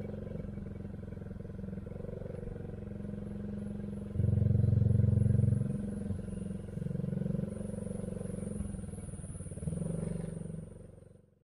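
Small motorcycle engine running at low speed, a steady hum that grows louder in short spells several times, with a faint high thin tone above it; the sound fades out near the end.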